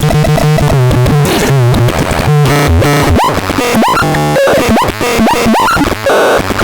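Electronic synthesizer (model 203601) playing a fast jumble of bleeping tones and bursts of noise, with a run of quick rising chirps in the second half.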